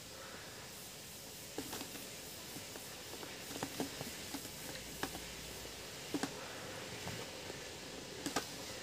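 Close-up chewing of Pringles potato crisps: a string of irregular short crunches and mouth clicks over a steady hiss, starting about a second and a half in.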